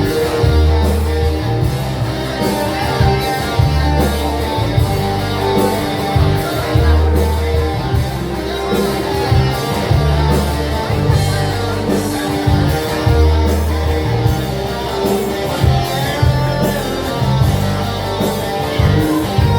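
Live band playing an instrumental passage of a Balkan pop song, with guitar over a repeating bass line and a steady beat.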